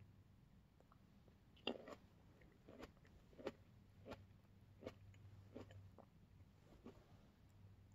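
Quiet, crisp wet crunches of green grapes, about seven of them coming one every second or less, over a faint steady low hum.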